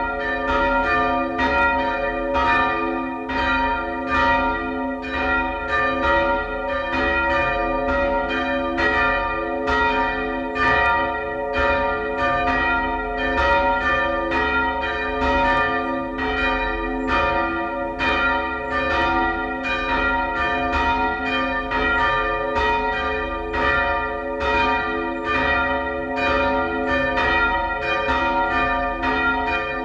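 Two church bells rung by hand with ropes, swinging and striking in a continuous peal, their long ringing tones overlapping, about one to two strikes a second.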